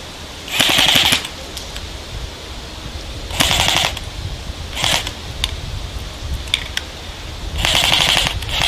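Airsoft electric guns firing full-auto bursts: four rattling bursts of rapid shots, the first and last longest, with a short one in between.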